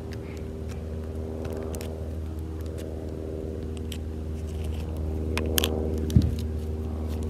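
Crackling and clicking from fingers squeezing and handling a small purple object, over a steady low mechanical hum. A louder crackle comes about five and a half seconds in, followed by a thump just after six seconds.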